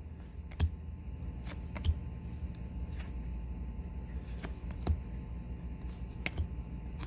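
Trading cards being handled and flipped through by hand, giving a few separate sharp clicks and flicks of card stock over a low steady hum.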